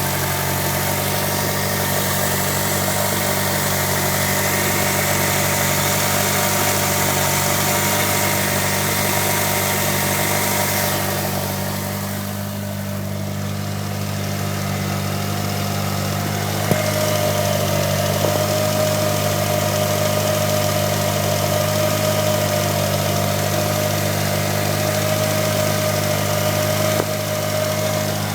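1998 Mitsubishi Eclipse GSX's turbocharged 2.0-litre four-cylinder idling steadily, with the chirping noise its owner is trying to track down.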